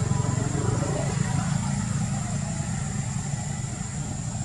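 Steady low hum of an idling engine, with a thin steady high tone above it.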